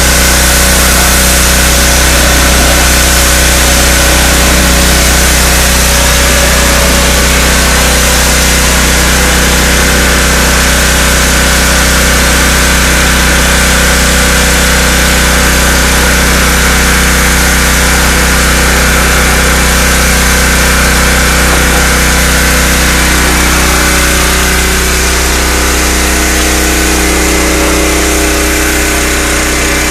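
Gas-engine pressure washer running steadily under load, with the hiss of the water jet on the deck boards. It gets a little quieter near the end.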